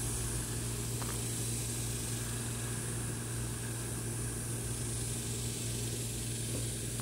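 Steady low mechanical hum with a constant high hiss over it, unchanging throughout.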